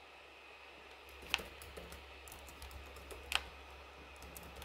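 Faint typing on a computer keyboard: a run of light key clicks, with two louder clicks about two seconds apart.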